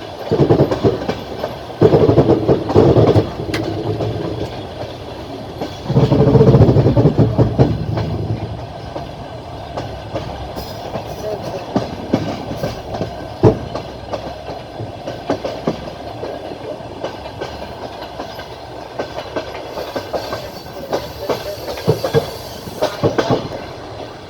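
Wheels of a moving train clattering over rail joints, heard from aboard, with a steady rumble under many sharp clicks. There are louder stretches of rumble near the start and around six to eight seconds in.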